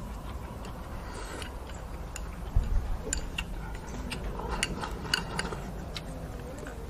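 Eating with chopsticks from a porcelain bowl: scattered sharp clicks of the chopsticks against the bowl, along with mouth sounds. There is one low thump about two and a half seconds in.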